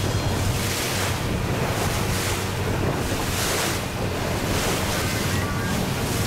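Wind buffeting the microphone and water rushing past the hull of a small boat under way, swelling and easing about every second, over the low steady hum of the boat's motor.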